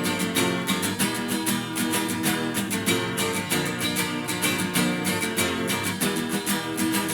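Background music: acoustic guitar strumming a steady rhythm in an instrumental passage of a song.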